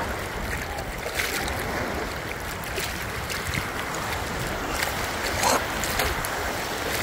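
Steady rushing noise of wind and water, with a few brief sharp sounds; the loudest comes about five and a half seconds in.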